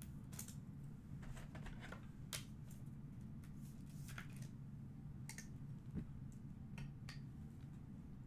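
Light clicks and rustles of trading cards and plastic card holders being handled, a dozen or so scattered ticks over a low steady hum.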